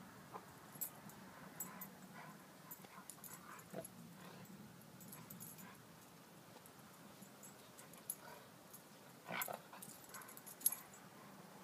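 A husky and a six-week-old golden retriever puppy play-wrestling: faint dog whimpers and small yips over light scuffling. A louder, sharper sound comes about nine seconds in, and a short sharp click a second later.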